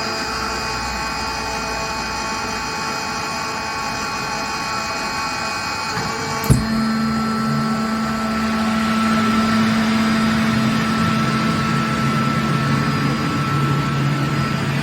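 Steady machine hum with several tones. About six and a half seconds in comes a sharp clunk as the Atlas Copco direct-drive screw compressor's 11 kW electric motor starts. It then runs with a steady low hum and a growing hiss as it compresses air to build pressure in the tank.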